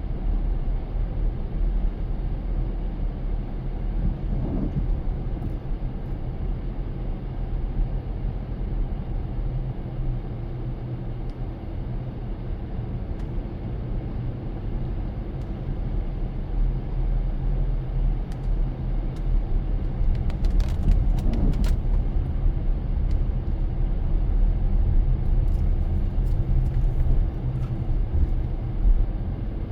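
Car driving: steady low engine and road rumble, with a few faint ticks about two-thirds of the way through.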